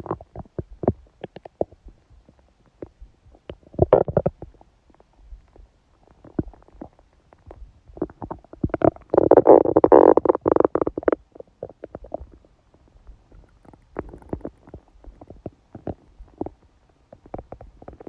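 A woman's stomach gurgling and rumbling during menstruation, with scattered small pops and bubbles. There is a short gurgle about four seconds in and a long, loud gurgle around the middle.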